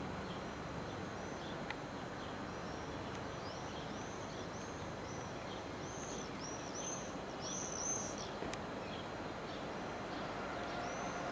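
A bird calling in a quick series of short, high chirps over steady outdoor background noise. Near the end the diesel engine of an approaching SNCF BB 60000 locomotive begins to rise faintly as a low steady hum.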